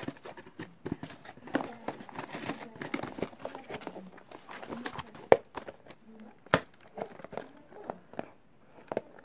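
Handling sounds of a cardboard box, paper leaflets and the small plastic camera on a table: irregular rustling and crinkling with scattered clicks and taps, and two sharper knocks about five and a half and six and a half seconds in.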